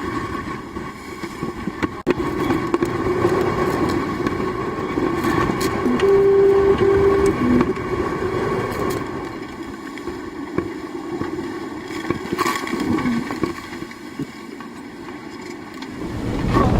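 Wind buffeting the microphone and sea noise aboard an offshore racing yacht sailing in strong wind, a rough continuous rush that swells and eases, with a few short tones a little past the middle.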